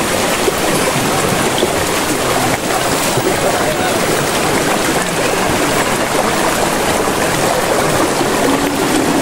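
Steady rush of flowing water from a waterfall stream.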